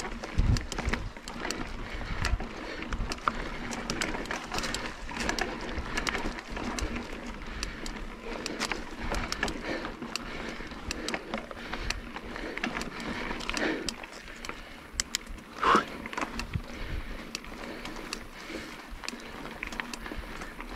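Mountain bike ridden over a dirt trail on a climb: tyres crunching on the ground while the chain and frame keep up a steady clicking rattle, with one short, louder squeak about three quarters of the way through.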